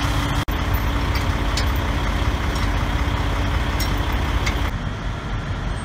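Heavy wrecker's diesel engine idling steadily, with a few light clicks over the rumble.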